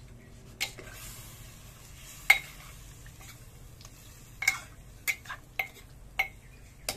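A metal ladle stirring chicken in a clay pot, clinking and scraping against the pot's side about eight times, with one sharp clack about two seconds in the loudest.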